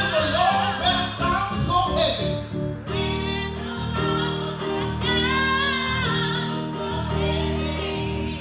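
Church music: singing with vibrato over steady, held instrumental chords.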